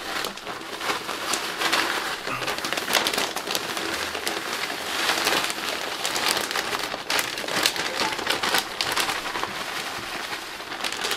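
Soil being poured and spread as a layer into a worm-farm container. It makes a continuous rustle full of small crackles and ticks.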